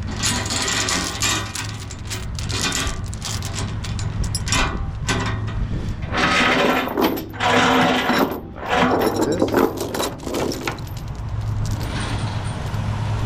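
Steel tie-down chain clanking and rattling as it is handled, in irregular bursts that are loudest around the middle, over a steady low hum.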